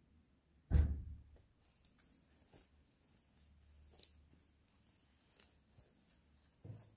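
A soft thump about a second in, then faint rustling and light ticks as linen in a wooden embroidery hoop is handled and a needle and thread are drawn through it.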